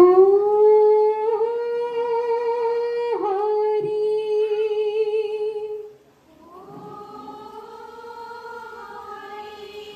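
Women singing an Assamese dihanam devotional chant together in unison, on long drawn-out notes. The singing breaks off briefly about six seconds in, then comes back softer.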